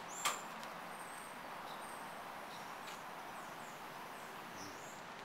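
A single sharp knock just after the start, then steady outdoor background noise with small birds chirping now and then, more often toward the end.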